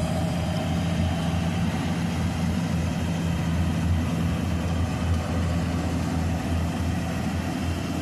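Yanmar tracked combine harvester running steadily, its engine holding a constant speed with a steady low hum.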